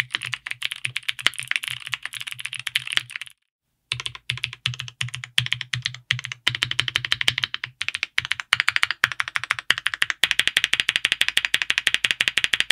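Typing on an Owlab Vento 80 gasket-mount mechanical keyboard with GMK double-shot ABS keycaps: rapid runs of key clicks, broken by a short silent gap about three and a half seconds in. Near the end comes a fast, even stream of keystrokes.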